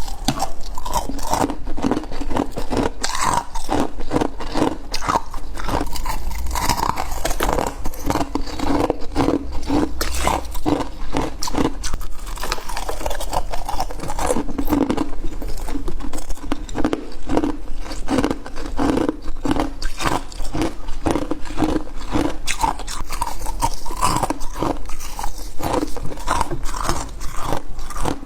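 Close-up crunching and chewing of soft freezer frost: continuous irregular bites and chews of packed ice crystals, with no pause.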